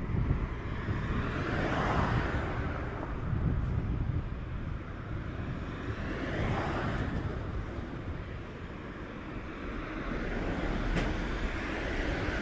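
Road traffic: two cars pass, each a swell of noise that rises and fades, about two seconds in and again about six and a half seconds in. A low wind rumble on the microphone runs beneath them.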